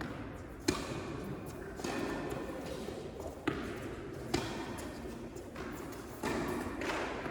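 Tennis balls struck by rackets during a rally on an indoor court: a sharp pop about a second in, another at about three and a half seconds and a third shortly after.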